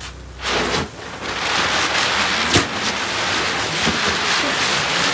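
Several Diwali 'helicopter' firecrackers, lit together, spinning on the ground and hissing steadily as they spray sparks. There are two short whooshes as they catch near the start, and a single sharp crack about two and a half seconds in.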